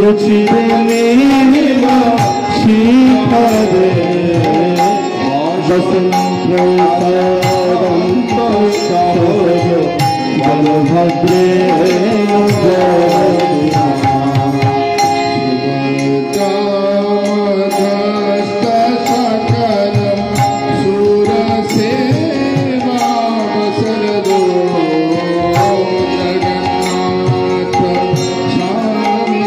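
Devotional kirtan: a lead singer chanting a melodic hymn over a harmonium's sustained chords, with a clay mridanga drum and karatalas hand cymbals keeping a steady beat.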